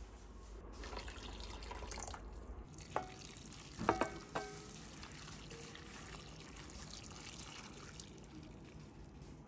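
Hot soy-sauce pickling brine poured from a stainless steel saucepan over sliced green peppers in a stainless steel container, a soft steady pouring hiss. Around three to four seconds in, a few ringing metal clinks as the pan meets the container.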